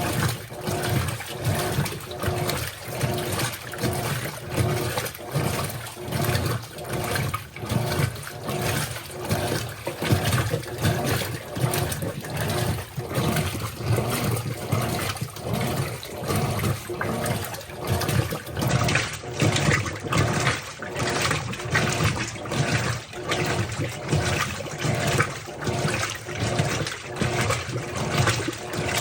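Colormaq LCA15 washing machine running a wash cycle: water churning and sloshing in the tub with an even, repeating rhythm, over a low motor hum.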